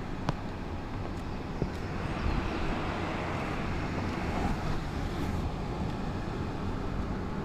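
Steady low rumble of a car being driven along a winding road, heard from inside the cabin: tyre and engine noise, with a couple of light clicks in the first two seconds.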